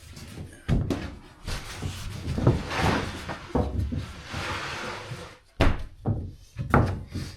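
Sharp knocks and bangs, one near the start and two close together near the end, with scraping and rustling in between.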